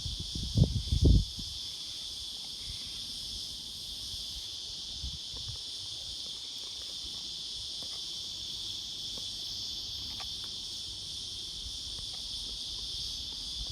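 Black prince cicada singing: a steady, continuous high buzz that does not break. Two low thumps about a second in are louder than the song.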